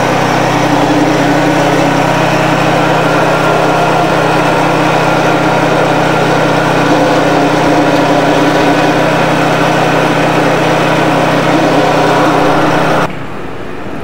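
Motor-driven sugarcane juicer running steadily, its steel rollers crushing cane stalks fed into it; the sound cuts off near the end.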